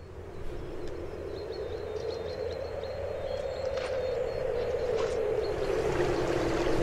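A shallow river running over stones, fading in and growing steadily louder.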